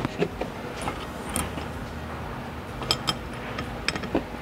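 Scattered light metallic clicks and taps as a bolt is worked through the holes of a metal boom tube and its boom connector.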